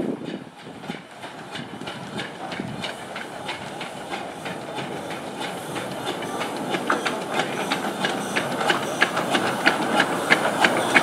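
A 15-inch gauge steam locomotive running slowly towards and past the listener, its steam hissing, with short clicks and knocks from the wheels on the track that come faster and louder as it draws near.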